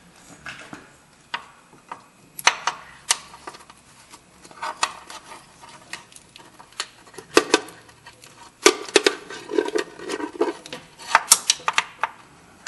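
2005 Dodge Caravan's new parking brake cable and its metal end fittings clicking, knocking and rattling as it is fed by hand through a hole in the underbody. The clicks come irregularly in short clusters, with rustling handling noise between.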